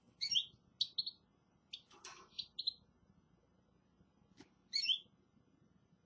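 Small caged finches chirping: short, high calls in quick clusters through the first three seconds and again near the end, with a faint click just before the last cluster.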